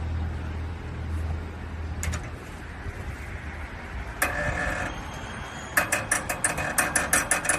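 A tool working on the old air conditioner's rusted mounting screws: a short rasp about four seconds in, then a fast run of ratcheting clicks near the end.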